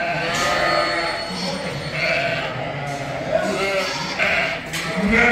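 Many sheep and lambs bleating, calls overlapping one after another, with a louder bleat near the end.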